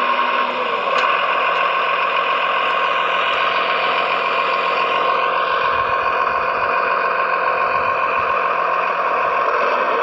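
Radio-controlled model construction vehicle running: a steady mechanical whine with a rattle over it.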